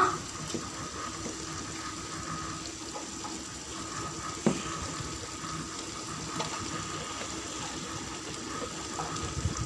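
Spiced onion-tomato masala frying in a pan with a steady sizzle as raw chicken pieces are dropped in by hand, with a soft knock about halfway through.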